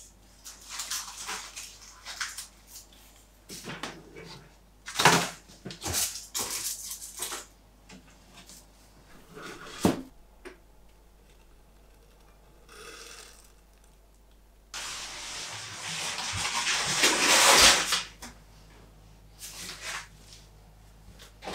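Household handling sounds of rubbish going into a plastic-lined pedal bin: a series of knocks and clatters as plant pots and cuttings are tipped off a wooden board, then a longer rustling noise lasting a few seconds past the middle, and a few more short knocks near the end.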